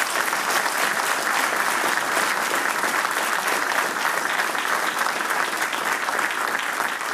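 A large seated audience applauding steadily, a dense patter of many hands clapping at once.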